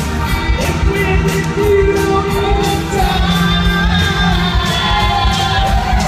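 Rock and roll music with singing over a steady drum beat, played loud in a large hall.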